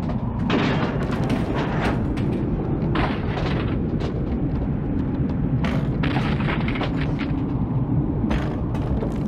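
Tornado sound in a film soundtrack: a deep, continuous rumble of storm wind, with repeated bangs and rattles every second or so over it.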